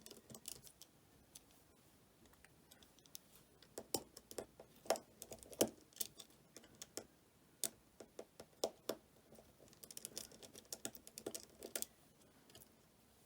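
Faint, irregular clicks and taps of small repair tools on an iPhone 8's internals as the two screws under the earpiece are undone.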